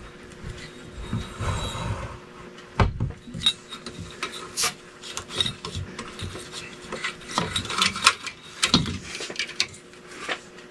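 Scraping, rubbing and irregular clicks of screws being tightened by hand on a ceiling fan's metal mounting bracket.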